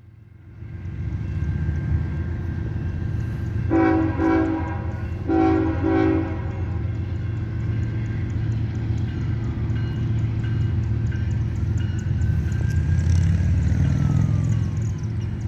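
CSX freight train's lead diesel locomotive rumbling steadily at low speed, its air horn sounding two blasts about four and six seconds in. A faint high tone glides downward near the end.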